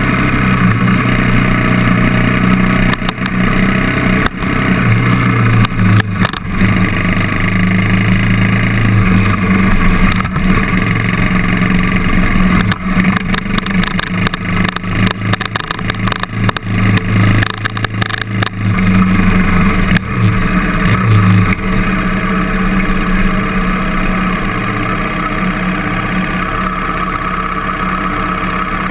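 KTM trail bike engine running while ridden over a rough gravel forest track, its pitch rising and falling with the throttle, with frequent knocks and rattles from the bumps. About three-quarters of the way through it settles to steadier, quieter running as the bike slows to a stop.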